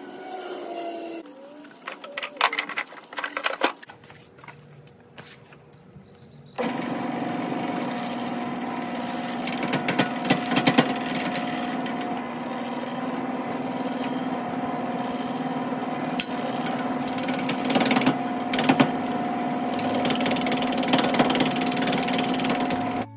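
Clicks and knocks of a wood lathe being set up, then, from about a third of the way in, the lathe running with a steady hum while a gouge cuts a spinning Osage orange blank, with a few louder stretches of cutting.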